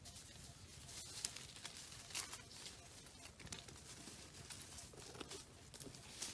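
Faint, irregular rustling and crackling of dry leaf litter, with a few sharper snaps.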